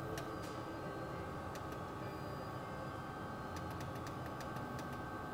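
Nocai NC-UV0609MAX UV printer running with a steady hum and a thin high whine, while its control-panel buttons click lightly several times, a quick run of presses a little past the middle.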